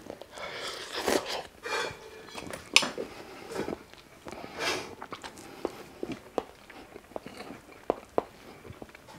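A man chewing a mouthful of soft scrambled egg, picked up close on a clip-on microphone: irregular soft wet mouth sounds and small clicks.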